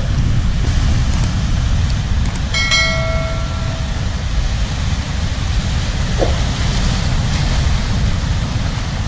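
Surf washing over shoreline rocks, with heavy wind rumble on the microphone. A few clicks come in the first couple of seconds, then a short bright chime about three seconds in, from a subscribe-button animation's sound effect.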